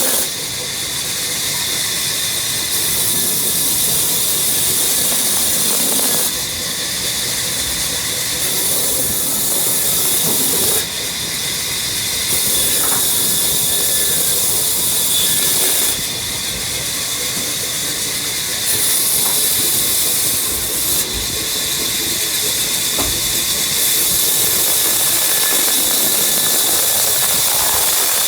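Woodworking machinery running: a steady, loud hissing whine of cutting and routing. The tone shifts abruptly every few seconds as one cutting clip gives way to the next.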